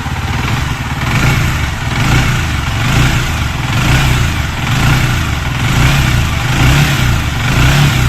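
Yamaha R15 V3's single-cylinder liquid-cooled engine running and revved in repeated short throttle blips, about one a second, after its water pump oil seal was replaced for an engine noise. It sounds smooth.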